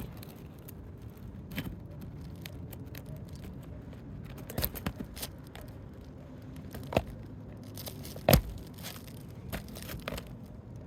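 Asphalt roof shingles being worked loose with a Roof Snake shingle-removal tool: scraping and crackling as the shingle tabs and sealant strips tear, with scattered sharp knocks, the loudest about eight seconds in.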